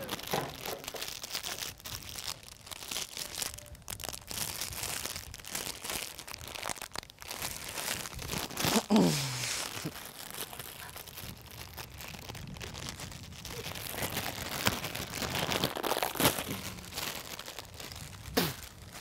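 Plastic bag of cake mix being crinkled and tugged as it is struggled with and torn open, with a short falling vocal sound about halfway through.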